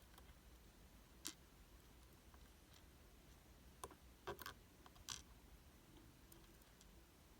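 Near silence broken by a few faint, light clicks and taps of small metal lock parts being handled, the loudest cluster a little past the middle.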